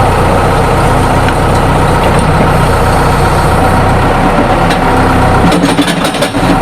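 A large engine running steadily at idle, with a few sharp clicks and knocks near the end as the low rumble drops away.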